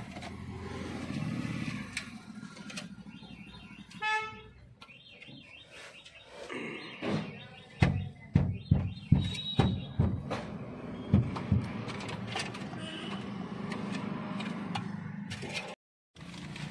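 Plastic dashboard trim frame around a Toyota Innova Crysta's touchscreen being unclipped and handled: a run of sharp clicks and knocks in the middle, over a steady low hum. A short pitched tone sounds about four seconds in.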